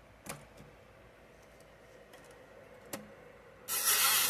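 A few faint clicks from handling the manual typewriter's mechanism, then, near the end, a sudden loud steady hiss that drowns them out.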